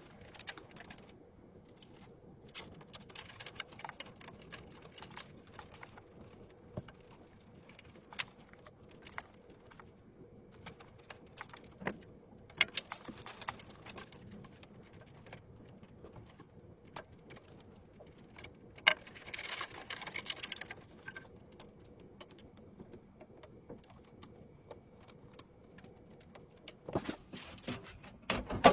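Scattered clicks, taps and light rattles of computer parts being handled and fitted, with a longer scraping rustle about two-thirds of the way through and a few firmer knocks near the end.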